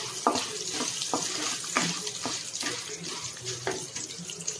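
Mustard seeds, chana dal and urad dal sizzling in hot oil in a kadai as a tempering: a steady hiss with frequent sharp pops, while a wooden spatula stirs them.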